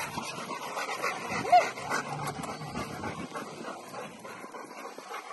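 Rottweilers panting, with one short, high dog whine about a second and a half in.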